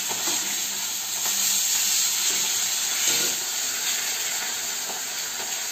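Fish pieces frying in hot oil in a kadai: a steady sizzle, with a few faint spatula scrapes and taps as the pieces are turned.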